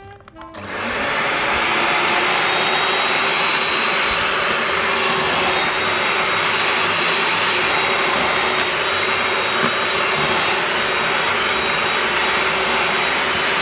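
Kenwood electric hand mixer starting up about half a second in and then running steadily, its beaters churning a thick butter-and-sugar batter with a freshly added egg.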